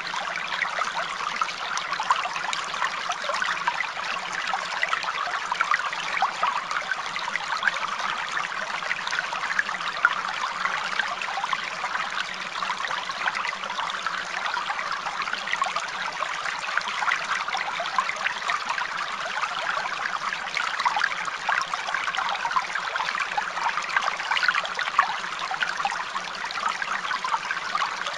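Steady sound of running water trickling, like a small stream, unchanged throughout.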